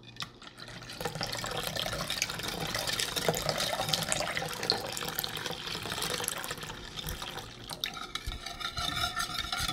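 Cold water poured from a glass measuring cup into a ceramic bowl of dissolved strawberry gelatin, splashing steadily, while a wire whisk stirs the liquid and ticks against the bowl.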